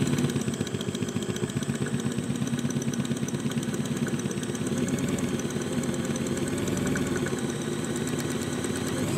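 Electric drill running steadily as a twist bit bores into a Sta-Lok rigging terminal clamped in a vise. The relief holes release the pressure on the jammed wedge former inside, so that it can be knocked out.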